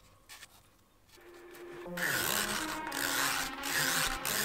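A small metal blade scraping the striker strip off the side of a matchbox, a dense rasping scrape that starts about two seconds in.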